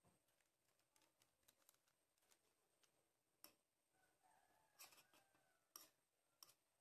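Near silence, with scattered faint clicks and ticks, a few sharper ones in the second half, from a wok of chicken in sauce simmering while a spoon sprinkles seasoning granules into it.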